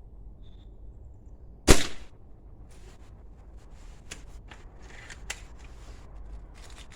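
Remington Express XP .22 break-barrel spring air rifle firing one sharp shot about two seconds in, followed by a string of quieter clicks and handling noises.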